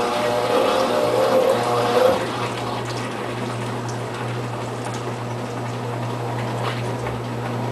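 Brastemp top-load washing machine running with water moving inside it, over a steady low hum. A pitched whine stops about two seconds in, leaving an even rushing of water.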